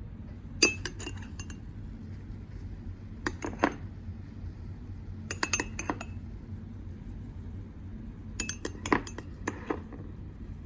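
Light clinking of a cup and utensils in four short clusters of quick taps, over a low steady hum.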